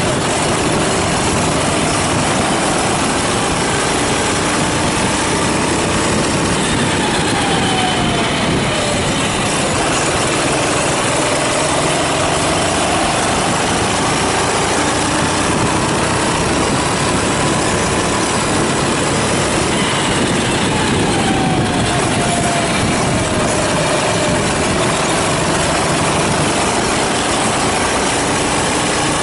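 Go-kart engine running hard over a loud, steady rush of noise, its pitch slowly rising and falling over several seconds as it accelerates and lifts off.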